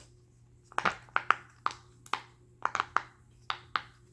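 Silicone pop-it fidget toy bubbles being pressed by hand: about a dozen short, sharp pops in an irregular run, starting about a second in.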